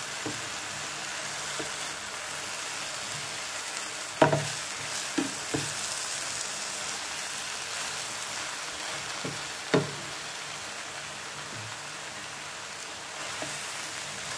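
Soya chunks and masala sizzling in an oiled non-stick frying pan while being stirred with a spoon: a steady frying hiss, broken by a few sharp knocks of the spoon against the pan, two of them louder than the rest.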